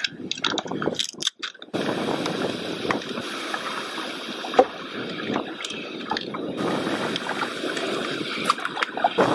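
Water lapping and sloshing against a kayak hull with wind on the microphone, choppy and broken up for the first second and a half. Scattered sharp clicks and knocks of fishing gear being handled, the loudest about four and a half seconds in.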